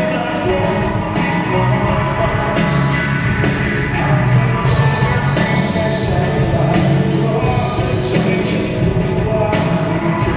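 Live band playing through a PA: a male singer sings over electric guitar, bass guitar, keyboard and a drum kit with steady cymbal hits.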